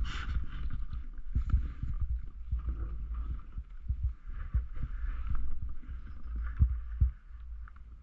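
A Doppelmayr CTEC fixed-grip triple chairlift ride: wind rumbling on the microphone, with irregular low knocks. Near the end, two louder knocks come close together as the chair nears a lift tower.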